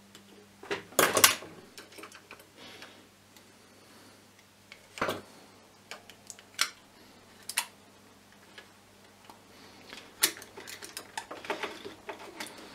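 Scattered clicks and light knocks of small plastic parts being handled: a VU meter and its clear plastic cover being fitted back together. A sharp clatter about a second in, another knock around five seconds, then a run of small ticks near the end.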